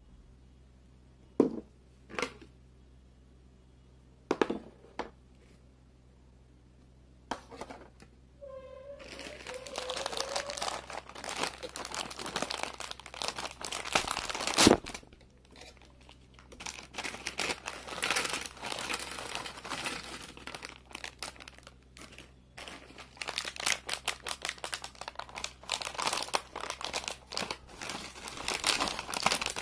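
Plastic chip packets crinkling as they are handled and torn open, with chips tipped out. A few isolated taps in the first five seconds, then near-continuous crinkling from about nine seconds in, with one loud sharp snap near the middle as a packet is torn.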